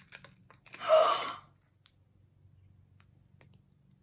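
A child's sharp gasp, about a second in, at opening a Mini Brands capsule. Faint small clicks of plastic handling follow.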